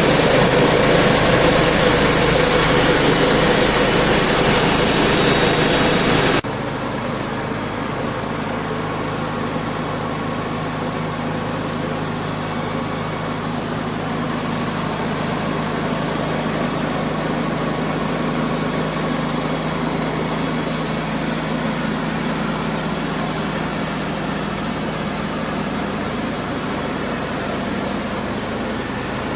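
Sawmill engine running steadily. A louder, harsher noise over it cuts off abruptly about six seconds in, leaving the engine's steady hum.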